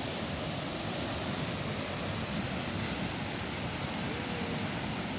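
Waterfall pouring, a steady rushing of falling water.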